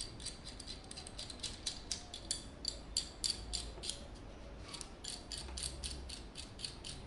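Rapid, irregular light clicks of a handheld adjustable AN-fitting wrench being worked, as its jaw is opened and closed.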